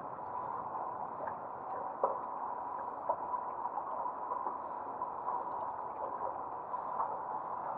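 Water lapping and gurgling, steady, with a few faint small clicks.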